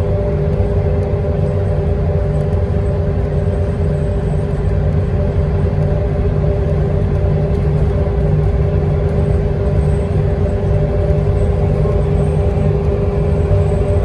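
Transit bus cruising at freeway speed, heard from inside: a steady engine drone and tyre and road rumble, with a constant hum running under it.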